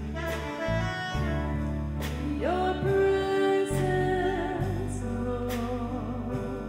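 Church hymn: singing with instrumental accompaniment, sustained low bass notes under the melody. About two and a half seconds in, a note rises into a long held tone.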